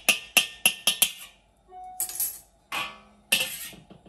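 Metal wok ladle clinking and scraping against a seasoned steel wok while spreading oil around the pan. About four sharp, ringing clinks a second in the first second, then a few longer scrapes.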